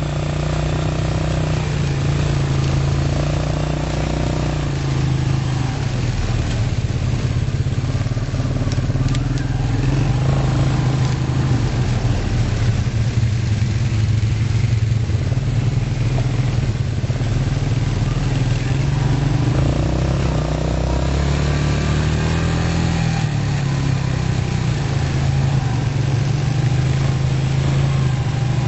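Quad bike (ATV) engine running steadily under way, its pitch rising and falling with the throttle.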